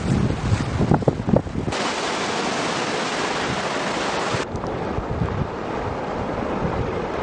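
Wind rumbling and buffeting on the microphone for the first second or two, then a steady hiss of sea surf washing up a shore. The sound changes abruptly about two seconds in and again about four and a half seconds in.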